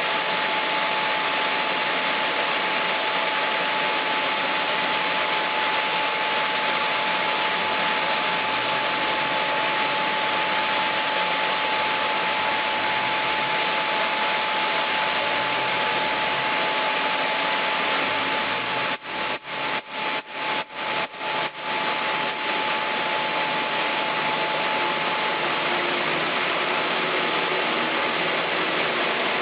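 Sawmill machinery running steadily, a dense mechanical noise with a steady high hum through it. About two-thirds of the way through the sound drops out briefly several times in quick succession.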